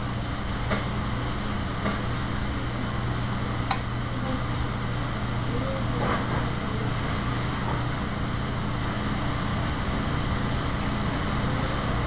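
Steady drone of a commercial kitchen's exhaust hood fan over a lit gas range, with a low hum. A few light clinks of pans and utensils come through it.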